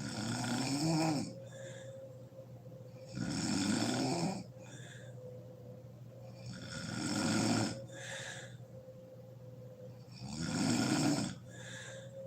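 A sleeping woman snoring loudly: four long, rough snores about three and a half seconds apart, each followed by a shorter, fainter breath.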